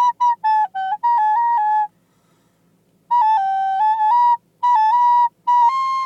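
A recorder being played: quickly repeated single notes at first, then short phrases of a few notes stepping up and down, a pause of about a second, and more short phrases.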